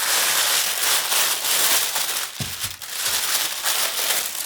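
Packaging being handled and unwrapped, crinkling and crackling steadily, with a couple of dull knocks about halfway through.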